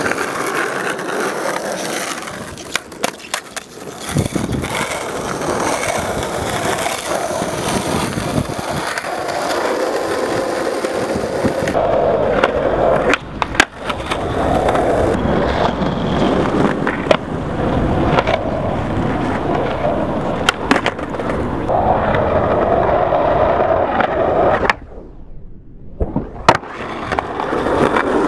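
Skateboard wheels rolling on asphalt, with several sharp clacks of the tail popping and the board landing. Near the end the rolling stops as the board is popped into a kickflip, and it lands with a clack about a second and a half later before rolling on.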